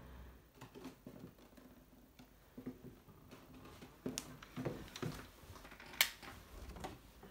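Faint, irregular footfalls and bumps on bare wooden floorboards as someone moves about a room, with one sharp click about six seconds in.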